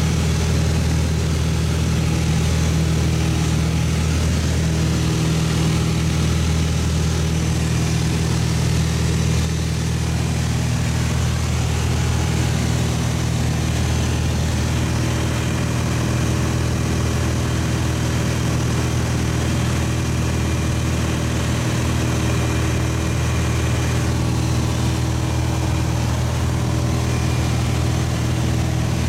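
Steady drone of a light single-engine airplane's piston engine and propeller, heard inside the cabin in flight. The level eases slightly about nine seconds in.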